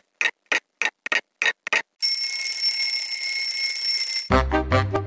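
Alarm clock ticking, about three sharp ticks a second, then its bell ringing loudly and steadily for about two seconds. The ringing cuts off suddenly as music starts.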